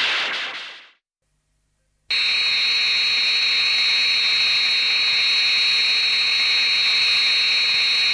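MechaGodzilla film sound effects: a loud hissing rush fades out in the first second. After a second of silence, a steady, high electronic buzz starts abruptly and holds at an even level.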